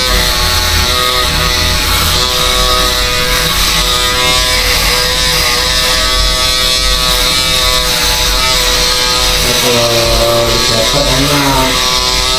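Barber's electric shaver buzzing steadily as it is run over a scalp, shaving the head smooth and bald. Briefly, about ten seconds in, some wavering pitched sound rises over the buzz.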